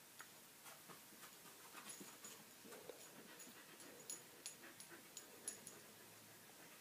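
Faint sounds of a Siberian husky puppy moving about: a scattered run of quick, light clicks and ticks with a thin metallic ring, and soft panting.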